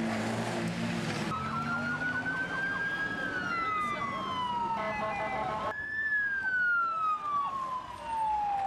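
Ambulance siren wailing in slow sweeps, its pitch rising for a couple of seconds and then falling for about three. Near the start a vehicle engine is heard under it. In the middle the sound cuts off and starts again abruptly, and a second steady siren tone is heard for a moment.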